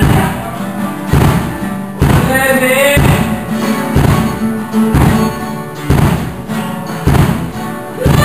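Live rock band: an acoustic guitar strummed over a Peavey drum kit keeping a steady beat, with a heavy drum hit about once a second. A voice sings briefly about two seconds in.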